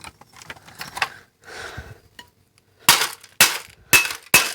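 Faint clicks and rattles of loose broken pieces, then, from about three seconds in, four hard blows about half a second apart, striking and breaking up a plastic device that has already been smashed, with a short clinking ring on the later hits.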